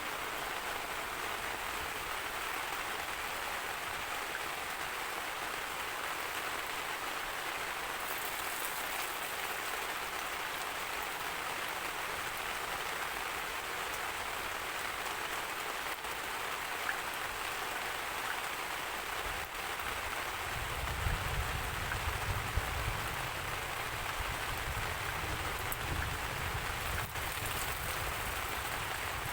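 Steady rain falling. About two-thirds of the way through, a low rumble of thunder comes in and goes on under the rain, loudest just after it starts.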